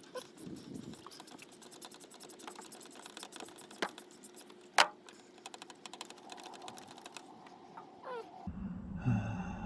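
Rapid clicking and creaking of a spark plug being wrenched out of a Twingo GT's cylinder head with a ratchet, with two sharper clicks midway. The rough noises suggest the plug's thread was going bad. A low steady hum comes in near the end.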